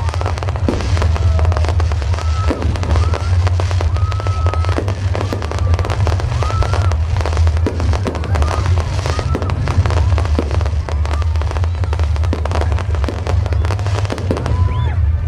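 Fireworks going off: a dense, continuous run of crackles and pops over a steady low rumble, with short whistle-like tones now and then.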